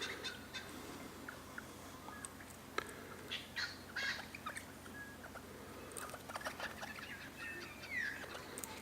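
Birds at a feeder: scattered short chirps and clicks, with one falling call near the end.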